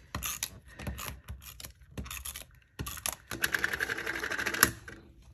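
Paper pieces handled and tapped on a tabletop, then about three and a half seconds in a handheld adhesive tape runner rolled along the back of a paper panel, giving a rapid, even clicking for just over a second.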